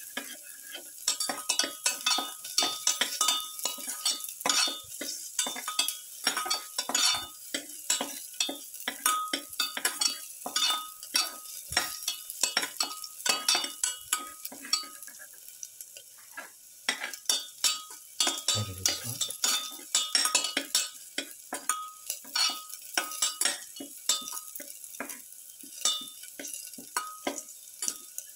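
Garlic cloves sizzling in oil in a steel pan while a slotted spatula stirs them, scraping and tapping against the pan about twice a second. There is a short lull about sixteen seconds in and a single dull knock near nineteen seconds.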